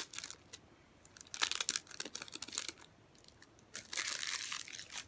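Yu-Gi-Oh! booster pack's foil wrapper being crinkled and torn open, in a run of crackly rustles about a second in and a denser stretch of tearing near the end.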